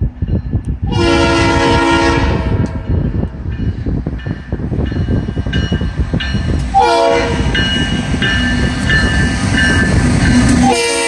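Norfolk Southern diesel freight locomotive sounding its air horn for a grade crossing: one blast about a second in, then a longer one from about seven seconds, over the steady rumble of the engine and wheels as it approaches.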